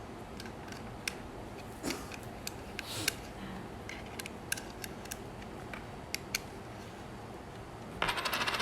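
Small, sharp clicks and taps of a Pentax K1000 film camera being handled while its LR44 battery is fitted and the battery compartment closed. Near the end comes a dense run of rapid clicking lasting about a second.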